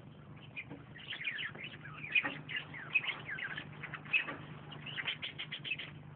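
Birds chirping: a rapid run of many short, high, mostly falling chirps, starting about a second in and stopping shortly before the end.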